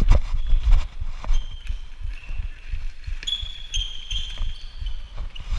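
Footfalls of a referee running on a sports-hall floor, with the body-worn camera jostling: a dense run of low thuds. Sharp clicks of sticks and ball come through, and short high squeaks of shoes on the floor are heard through the middle of the stretch.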